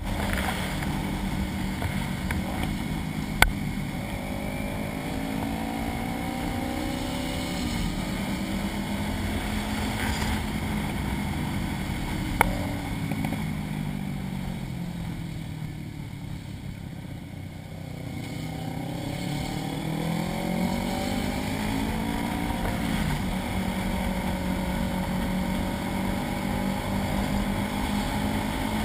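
Motorcycle engine running under way, recorded through a fully enclosed GoPro case. About halfway through, the engine note drops and quiets as the bike slows, then rises again as it accelerates. Two sharp clicks are heard, one a few seconds in and one about twelve seconds in.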